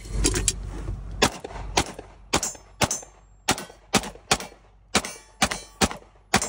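Semi-automatic pistol fired repeatedly out of an open car window, heard from inside the cabin: about a dozen shots at roughly two a second, unevenly spaced.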